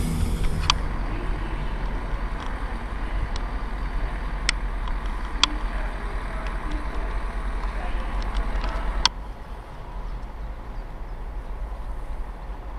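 Low steady rumble of a train at a railway station, with scattered sharp clicks. The sound drops suddenly about nine seconds in.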